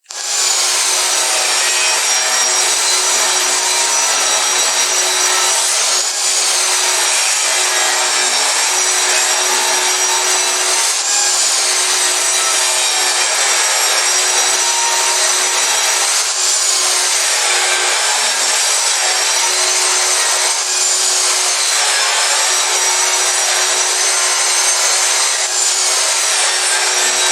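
Table saw running steadily with a high whine while ripping one-inch strips from a 2x10 board. The whine dips briefly about every five seconds as the blade loads up in each pass through the wood.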